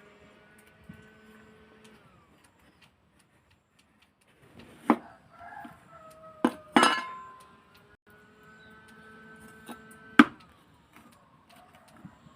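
A few sharp knocks and clinks, like hard objects struck together, the loudest about halfway through and near the end, over a faint steady hum. A rooster crows in the background about halfway through.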